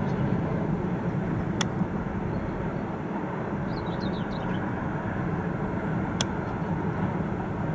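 Steady low outdoor rumble with two sharp clicks, one about a second and a half in and one about six seconds in, and a few faint high chirps in the middle.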